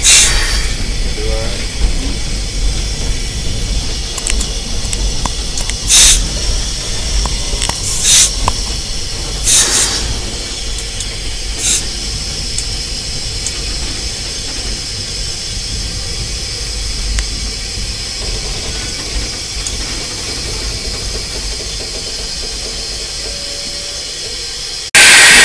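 Steady steam hiss in the cab of a narrow-gauge 4-6-0 steam locomotive, over a low rumble, broken by a few short, louder bursts in the first twelve seconds. A loud rush of steam starts suddenly just before the end.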